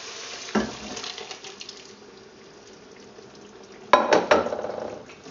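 Frog-leg stew poured from a stainless-steel saucepan into a pan of vegetables: a metal knock about half a second in, a faint slosh of liquid, then a loud metal clank that rings on briefly about four seconds in.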